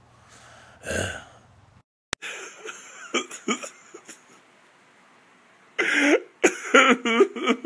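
A man crying: sniffs and short choked sobs with cough-like catches, getting much louder and more broken about six seconds in.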